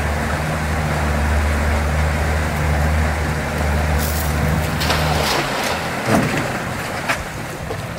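Pontoon boat's outboard motor running steadily at low speed with a low hum, cutting off about five seconds in. A few short sharp sounds follow in the second half.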